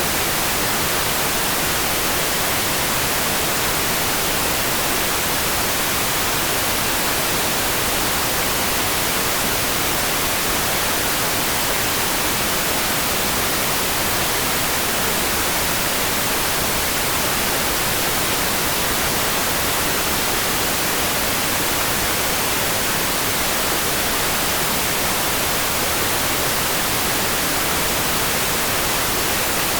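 Steady rain for sleep: an even, unchanging hiss weighted toward the high end, with no separate drops or thunder standing out.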